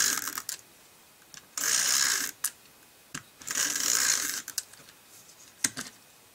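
Craft tape being run out and applied to paper in three short rasping strokes, with small clicks and taps of paper handling between them.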